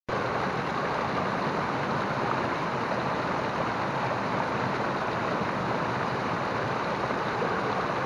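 A small waterfall running over rocks into a pool: a steady rush of flowing water.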